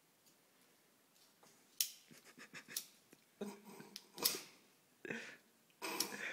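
A handheld flint lighter struck several times in a row, its thumb wheel clicking and scraping as it sparks and the flame catches. The first sharp click comes about two seconds in, followed by a series of irregular strikes.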